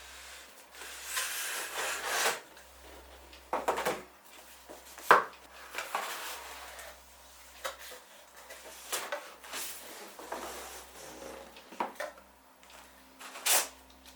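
PC parts being handled and fitted during assembly: irregular rubbing and scraping with sharp clicks and knocks, the loudest about five seconds in and another near the end.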